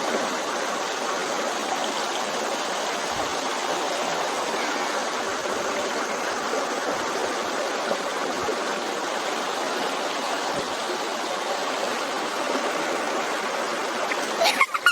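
Mountain stream water running in a steady, even rush.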